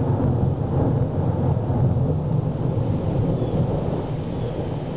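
A roll of thunder: a deep rumble that breaks in suddenly just before and rolls on, slowly fading over the following seconds.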